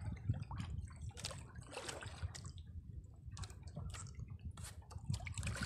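Sea water lapping and splashing against the side of a small wooden outrigger boat, in small irregular splashes.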